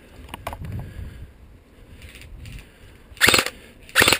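Two short loud bursts of airsoft rifle fire, one about three seconds in and one near the end, over wind rumbling on the microphone.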